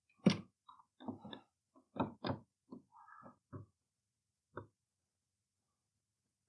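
A dozen or so short knocks and clicks of a light being handled and fitted, most packed into the first two and a half seconds, with a few more spaced out up to about four and a half seconds in.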